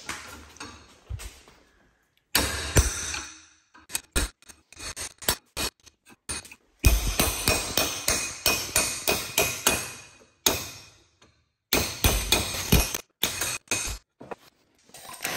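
Hammer striking a chisel wedged behind a wheel bearing's heated outer race on a Porsche Cayman S front wheel hub clamped in a bench vise. It comes in runs of sharp metallic blows, often several a second, with short breaks. The race is being driven off the hub.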